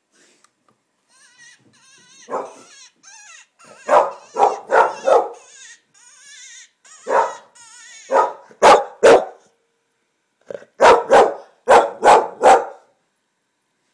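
English Springer Spaniel barking loudly in clusters of short barks, about fourteen in all, alarmed by an animal call. A high, wavering predator call plays from a laptop through the first half.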